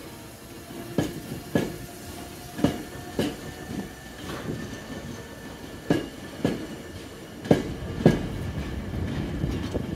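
Hankyu electric train rolling slowly past, its wheels knocking over a rail joint in pairs about half a second apart, a pair every second or two, over a low rumble and a faint steady whine.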